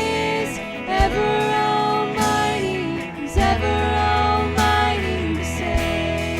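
Live worship band playing a Christian song: a voice holds long notes over guitar and bass, with an occasional drum hit.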